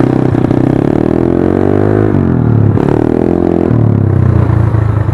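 Yamaha Mio scooter's single-cylinder four-stroke engine running through an aftermarket open 'Hispeed' exhaust pipe, loud. The pitch climbs for about two seconds as the throttle opens, falls off, then rises again. The owner says the pipe is no longer as crisp as when it was new.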